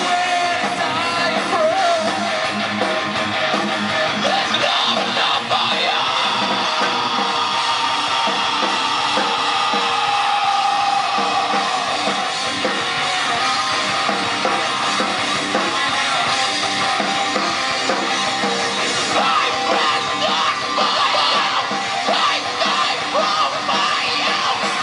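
Rock band playing live: electric guitar and drum kit at a steady, loud level, with shouted vocals.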